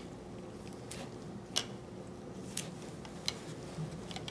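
Wooden craft sticks clicking against thin plastic cups as they are set into the dye solutions: a few light, sharp clicks about a second apart over a faint steady hum.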